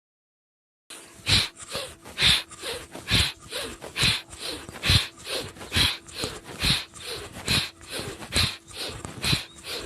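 Bhastrika pranayama (bellows breath): forceful, rhythmic breaths in and out, about one full breath a second. It begins about a second in.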